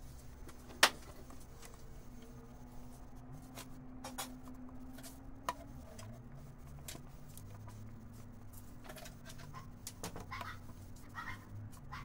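Screwdriver working on a car carburetor: a sharp metal click about a second in, then scattered lighter clicks and taps of tool on metal parts, over a low steady background hum.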